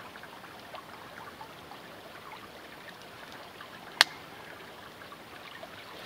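Creek water running steadily, with one sharp crack from the burning wood fire about four seconds in.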